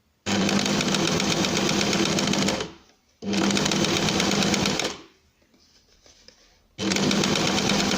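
Sewing machine stitching a seam along a zipper in three runs of a couple of seconds each. Each run starts abruptly and winds down as the pedal is let off.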